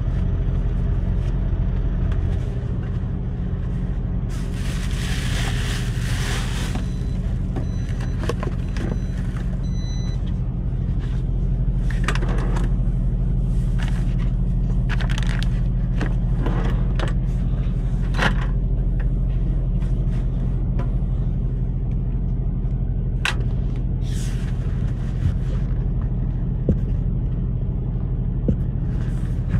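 Steady low hum of the semi truck's idling engine heard inside the cab, with paper rustling and items being rummaged and scraped in a storage drawer, and a few sharp clicks.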